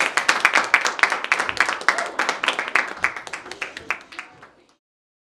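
Applause: many hands clapping fast and unevenly, fading out about four and a half seconds in.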